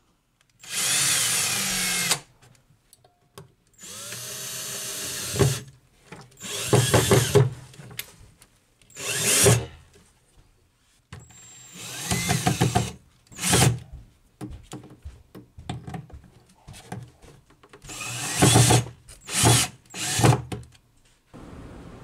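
Cordless drill/driver running in short bursts, driving screws through a metal drawer-slide rail into pilot holes in plywood. Some bursts rise in pitch as the motor spins up, and quiet pauses with small clicks come between screws.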